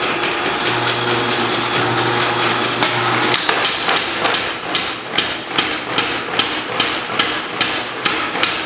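Little Giant 50 lb mechanical power hammer running, its ram striking in a fast rhythm, then from about three seconds in slower, sharper separate blows about two and a half a second.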